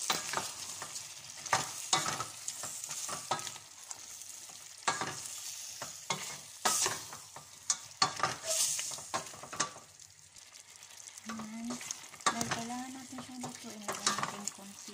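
Wooden spoon stirring chunks of chicken, potato and carrot in a stainless steel pot, with irregular scrapes and knocks against the pot over the sizzle of the pieces frying.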